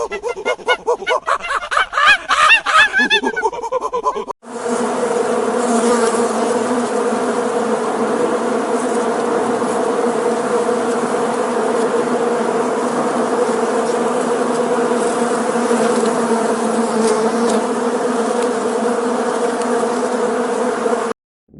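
Bees buzzing: a steady, even hum of wingbeats that starts abruptly about four seconds in and runs for about seventeen seconds before cutting off. Before it, an animal makes rapid, repeated pitched calls.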